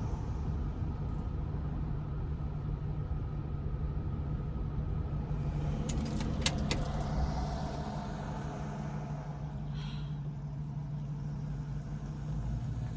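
Car running steadily with a low rumble and hum, heard from inside, with a brief cluster of sharp clicks about six seconds in.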